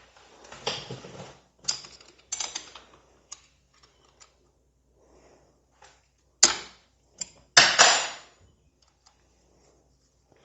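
Hand tools clicking and clanking against metal while a motorcycle's clutch cable adjuster is being worked on. There are a few short clicks early on, then two louder clanks, about six and a half and eight seconds in.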